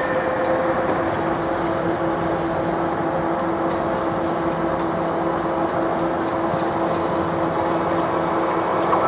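Electric ČD class 680 Pendolino train approaching from a distance: a steady hum with a few held tones over a broad rumbling noise.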